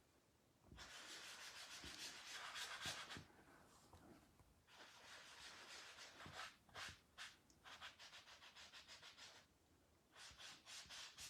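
Faint scrubbing of an ink sponge dabbed and rubbed over card stock in quick repeated strokes, pausing twice.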